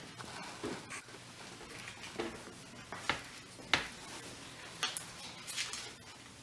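Corn husks crinkling and rustling in the hands as a filled husk parcel is folded and tied, heard as short, irregular crackles and light taps about a second apart.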